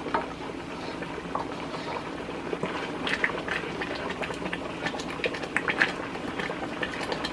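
Thick tomato paste bubbling as it cooks down in a pot, with bubbles bursting in short pops and a wooden spoon stirring through it. The pops come more often from about three seconds in. The paste is still watery and reducing, not yet at its final thickness.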